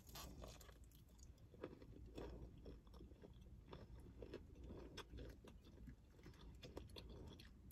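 Faint close-up chewing and biting of a breaded fried chicken wing: small crackles and wet mouth clicks, the breading not very crunchy.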